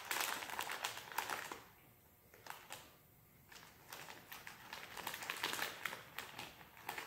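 Small plastic candy wrapper crinkling as it is unwrapped by hand, in two spells with a short lull about two seconds in.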